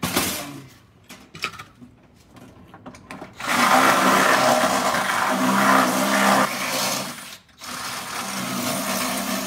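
A short metallic clatter as the ATM cash cassette is handled, then a cordless drill runs steadily, boring into the lock of the sheet-metal cassette. It stops briefly after about four seconds and starts again a little quieter.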